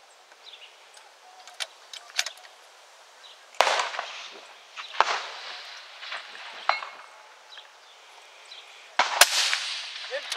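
Two shots from a 6.5 Creedmoor precision rifle, about five and a half seconds apart, each followed by a trailing echo. Fainter cracks and clicks come in between.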